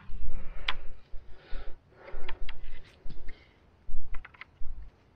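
Feeder rods and their rigs being handled: an irregular run of small clicks and knocks with rustling, over dull low bumps.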